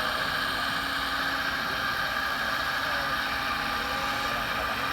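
Steady, even running hum of radio-controlled model trucks and construction machines, with no breaks or changes.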